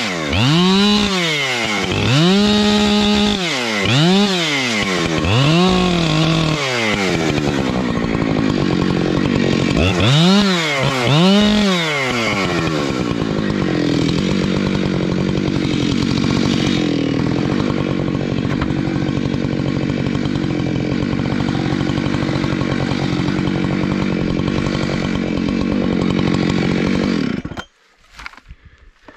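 Husqvarna chainsaw limbing a fallen conifer: the engine revs up and down in quick throttle bursts as each branch is cut, then runs at steady high revs for a long stretch. The engine cuts off abruptly near the end, followed by a few handling knocks.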